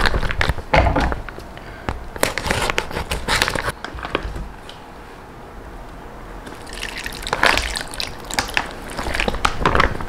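Plastic pouch crinkling in the hands while pickled sour cabbage and its brine are poured and squeezed out of it into a pan, with the liquid dripping and splashing. There are quick crackles for the first few seconds, a quieter spell in the middle, then more crackling and pouring near the end.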